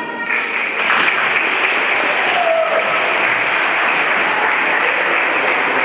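Audience applause starting about a third of a second in, as the last note of the dance music dies away, then going on steadily.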